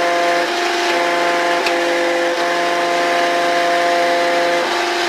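Steady machine drone with several constant humming tones. Two of the tones drop out briefly about half a second in, and one cuts off near the end.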